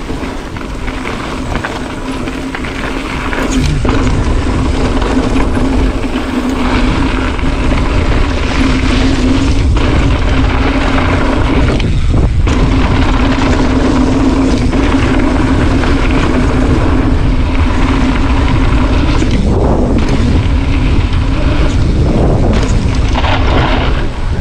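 Strong wind buffeting an action camera's microphone, mixed with the tyres and drivetrain of a Cube Stereo One77 full-suspension mountain bike rolling down a dirt trail. The roar is steady and loud, with a couple of brief dips.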